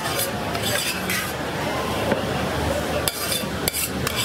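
Metal utensils clinking and scraping against pans and trays at a street food stall, in irregular knocks over background chatter.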